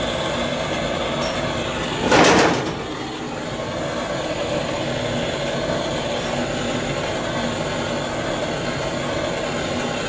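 Hand gas torch burning with a steady hiss as it heats body lead on a chopped roof pillar, with a brief louder burst about two seconds in.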